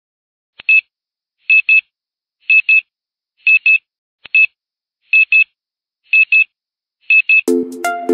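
Countdown timer beeps: a short, high double beep about once a second. Electronic music starts near the end.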